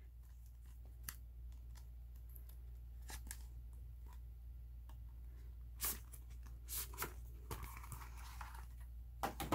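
Faint handling of a CD album's packaging: the glossy card sleeve and photobook sliding and tapping, with scattered light clicks, a brief sharper scrape about six seconds in and a soft rustling slide near the end, over a low steady hum.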